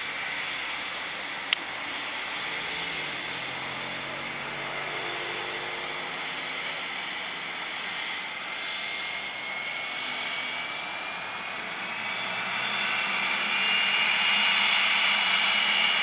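Cessna Citation CJ1 business jet's twin Williams FJ44 turbofans whining steadily at taxi power, growing louder over the last few seconds as the jet comes closer. A single sharp click sounds about a second and a half in.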